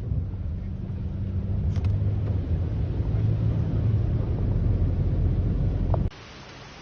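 A motor vehicle's engine running with a steady low rumble and hum, cutting off abruptly about six seconds in and giving way to a quieter hiss.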